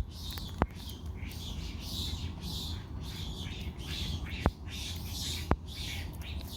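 Baby monkey crying with rapid, shrill, raspy squeals, several a second, broken by a few sharp clicks.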